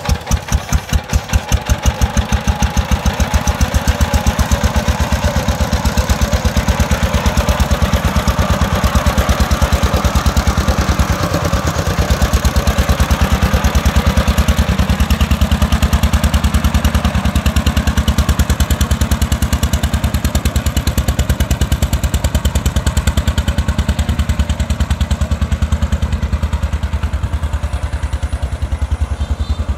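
Single-cylinder diesel engine of a công nông three-wheeled farm truck running with a steady fast chug. It picks up over the first couple of seconds as the loaded truck moves off, then runs evenly.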